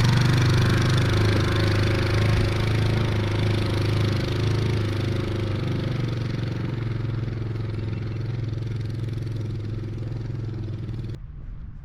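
A side-by-side UTV's engine running steadily, slowly growing quieter, then cutting off suddenly near the end.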